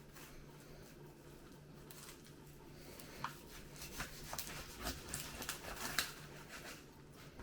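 Knife cutting the thighs off a raw whole chicken, with skin tearing and the joints cracking. Scattered wet clicks and cracks come from about three seconds in over a low steady hum.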